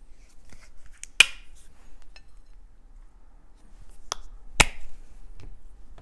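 A few sharp plastic clicks from handling a squeeze bottle of acrylic paint as it is opened, used and set down: one about a second in, then two more close together after about four seconds.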